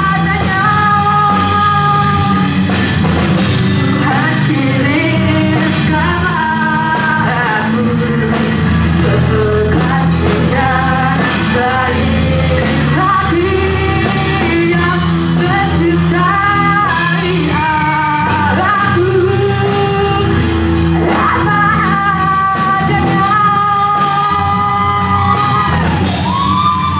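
A live band playing a loud song with a singer holding long notes over a steady drumbeat.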